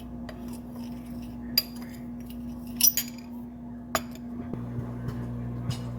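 Kitchen utensils clinking against glass and dishes, a handful of sharp separate clinks, over a steady electrical hum that a deeper hum joins about four and a half seconds in.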